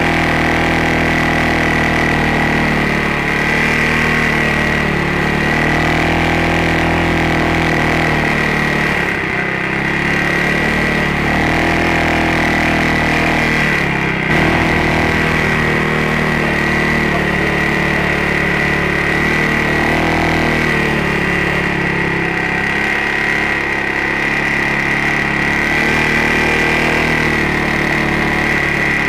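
ATV engine running at low to moderate revs, its pitch rising and falling as it works along the trail, with a steady high whine throughout.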